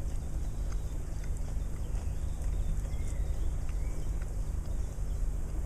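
Steady low outdoor rumble, with a few faint ticks and two brief chirps near the middle.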